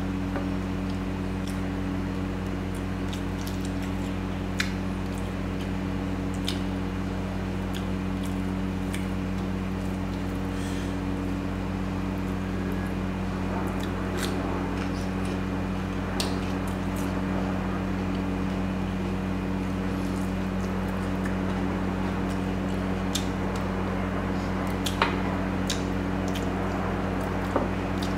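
Close-miked eating of curry and rice: wet chewing and scattered mouth smacks and clicks over a steady low hum.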